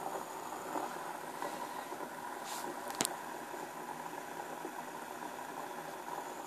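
Homemade beer-can methanol blowtorch burning with a steady rushing jet flame. A sharp click about three seconds in.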